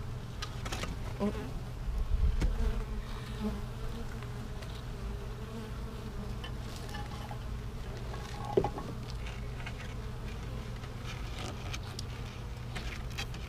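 Italian honey bees buzzing around an open-air hive in a steady hum, with one bee buzzing briefly louder, as if close past, about eight seconds in. A few soft low thumps come about two seconds in.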